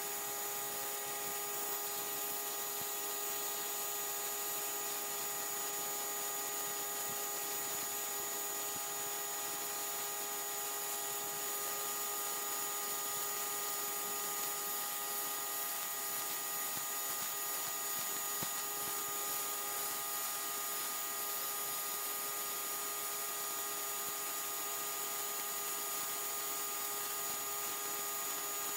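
Simoniz 1800 PSI electric pressure washer running steadily: a constant whine from its motor and pump under the hiss of the water jet spraying onto concrete and stripping the dirt.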